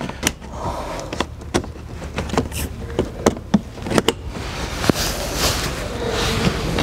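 Irregular clicks and light knocks of plastic bumper push clips and the lower bumper panel being pressed back into place by hand, with rubbing and handling noise growing near the end.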